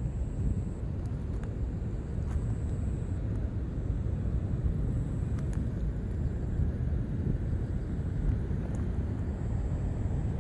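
Steady low rumble of distant traffic, with wind on the microphone.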